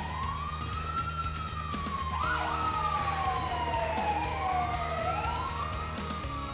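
Fire engine sirens wailing: two sirens slowly rise and fall in pitch, out of step with each other from about two seconds in, over a steady low hum.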